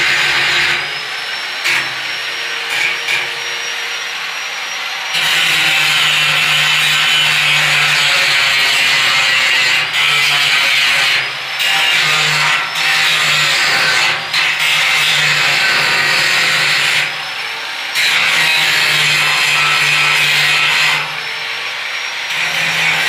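Angle grinder grinding the steel stair railing with a harsh, high grinding noise over a steady motor hum. It comes in several long passes of a few seconds each, with short breaks between them.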